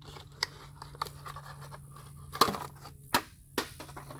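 Handling noises: scattered clicks and light knocks with some scratching and rustling, two sharper knocks about two and a half and three seconds in, over a steady low hum.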